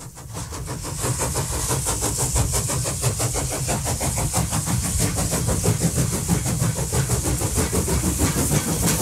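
Model train running on its layout: a steady, fast rhythmic clatter over a low rumble, fading in over the first second.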